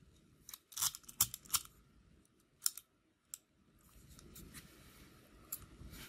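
Sharp metallic clicks and snaps from a Master 178D brass code-wheel combination padlock being worked with a thin bypass tool: about half a dozen in the first three and a half seconds, then fainter clicks.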